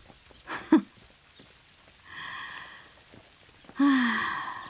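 A woman's breathy non-speech vocal sounds: a short hum a little over half a second in, a soft unvoiced exhale about two seconds in, and a louder voiced sigh falling in pitch near the end.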